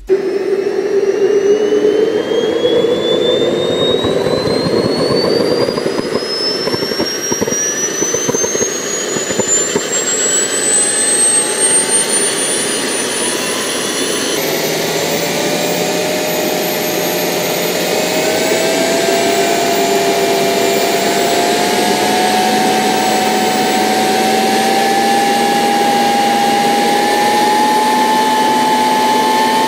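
JetCat model jet turbine in a radio-controlled CH-53 helicopter spooling up, its high whine climbing steadily in pitch. About halfway through the sound changes abruptly to a steady turbine rush with a lower tone that rises slowly.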